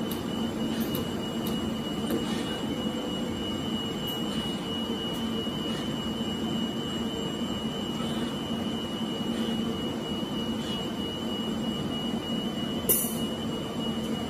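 Steady drone of test equipment and cooling fans, with a constant high-pitched whine over it. A single sharp click sounds near the end.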